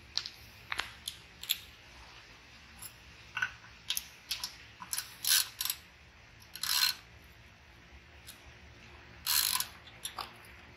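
Hand tools being handled while a socket is fetched and fitted: irregular sharp metal clicks, with short clinking rattles about five, seven and nine and a half seconds in.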